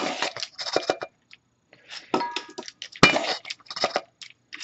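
Measuring spoon clinking and tapping against kitchen bowls and containers while dry baking ingredients are measured out: a run of irregular clinks with brief ringing, the sharpest one about three seconds in.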